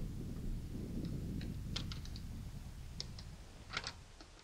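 Light metal clicks and taps, about a dozen scattered over a few seconds, as a screwdriver tip is seated and turned in the screw of a bull ring truck tie-down.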